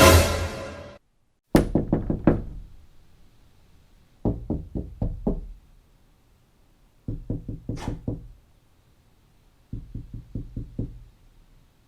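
Rapid knocking in repeated runs: a loud hit at the start, then four quick series of about six knocks each, a couple of seconds apart.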